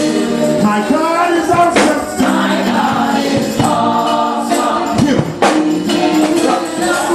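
Gospel choir and congregation singing with a band, a tambourine shaking and striking along with the beat.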